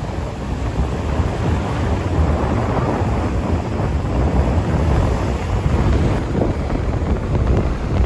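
Strong wind buffeting the microphone: a loud, steady low rumble that swamps the audio.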